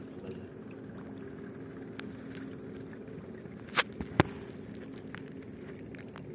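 A boat engine running with a steady drone. Around the middle come two sharp knocks, a little under half a second apart.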